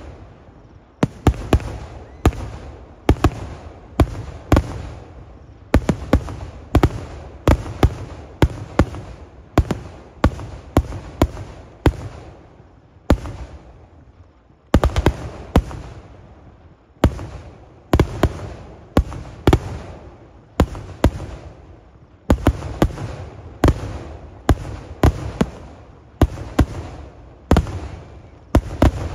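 Aerial firework shells fired in quick succession from a ground mortar, a run of sharp bangs about one or two a second with a few short pauses.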